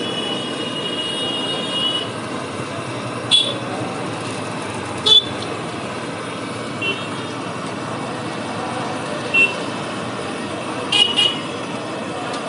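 Oil sizzling steadily as a batch of fuluri fritters deep-fries in an iron kadai, with street traffic around. A vehicle horn sounds for about two seconds at the start, and a few sharp metallic clinks come later.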